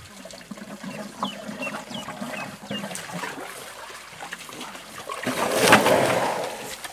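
Water being poured and splashing, swelling into a loud rush of water about five seconds in. A few short high chirps sound earlier.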